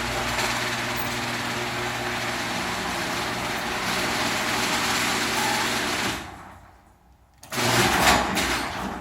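Genie screw-drive garage door opener running with a loud, steady mechanical whir from the screw turning in its rail. The screw is dry and needs greasing, and the noise is super noisy. It stops about six seconds in and starts again about a second later.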